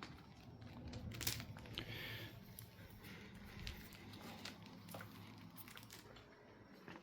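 Faint handling noises: scattered light clicks, knocks and a brief rustle over a low background hum.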